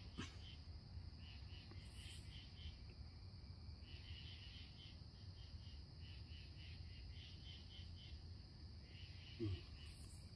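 Faint crickets chirping in short repeated pulses over a steady high insect drone. About nine seconds in there is a brief low sound.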